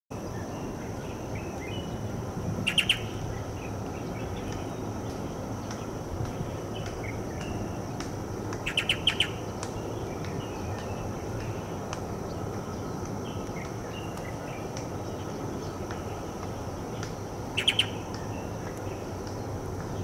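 Light-vented bulbul giving an unusual chirping call: three short bursts of quick, sharp, clicky notes about six seconds apart, with fainter chirps in between.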